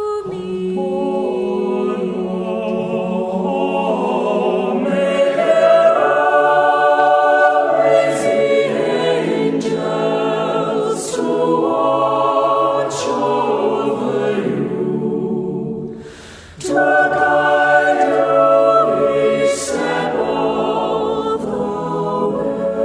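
Choir singing a cappella in slow, held chords, with a brief pause between phrases about two-thirds of the way through.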